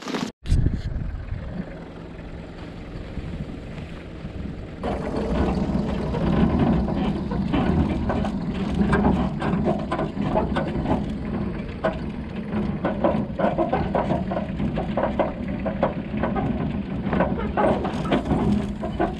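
Mercedes Sprinter 4x4 van driving slowly off-road over grass and a dirt track: a low, steady engine and tyre rumble with frequent knocks and rattles from bumping over the rough ground, getting louder about five seconds in.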